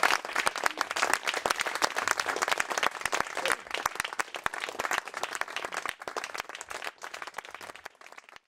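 Audience applauding, a dense patter of many hands clapping that slowly thins and fades, then stops abruptly near the end.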